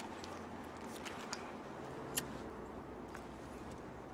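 Quiet, steady background noise of a room, with a few faint short clicks.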